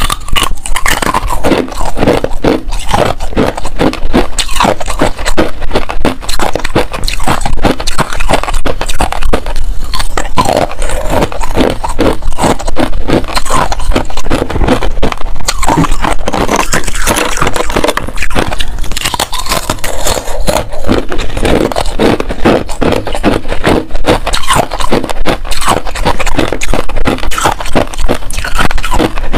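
Close-miked crunching of pink-dyed freezer frost and hard ice being bitten and chewed: a dense, continuous run of rapid crisp crunches.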